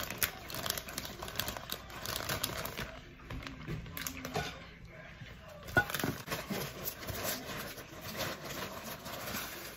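Plastic bag of dry noodles rustling and crinkling as it is handled, with scattered light clicks and one sharper knock about six seconds in.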